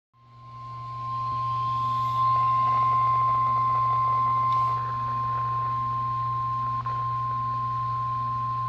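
NOAA Weather Radio warning alarm tone, a single steady high tone of about 1050 Hz, sounding from a weather radio's speaker. It fades in over the first two seconds and then holds, with a low hum underneath. It is the tone that comes before a warning broadcast, here a severe thunderstorm warning.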